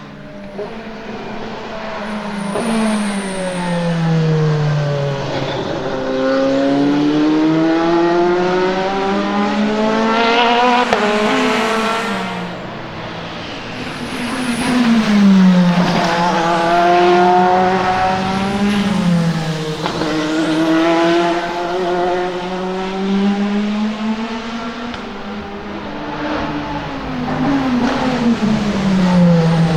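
Genesis GMR-001 LMDh hypercar engines at racing speed. The revs climb in long sweeps through the gears, then drop in quick downshift steps under braking, and this happens several times as cars come and go.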